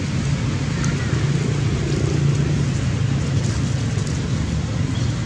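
Steady low rumbling background noise with a constant hiss, unchanging throughout.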